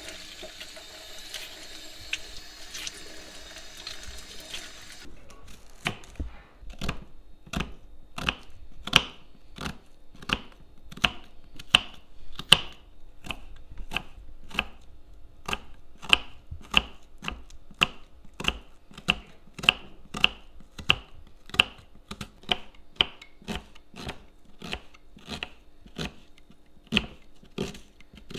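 Kitchen tap running into a stainless steel sink for about the first five seconds, cutting off abruptly. Then a knife slicing an onion on a wooden cutting board: a steady run of crisp cuts, each ending in a knock on the board, about one and a half a second.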